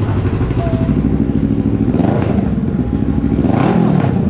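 Kawasaki Ninja 650 parallel-twin engine running through an aftermarket full exhaust, blipped twice, its pitch rising and falling about two seconds in and again near the end.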